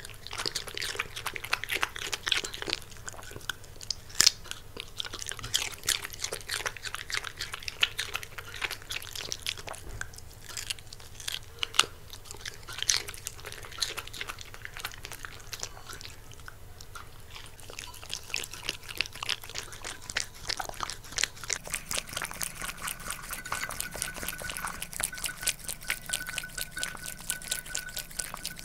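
A West Highland terrier chewing close to the microphone: irregular crunches and wet mouth clicks and smacks. Near the end it is licking. A faint steady high tone runs under the last third.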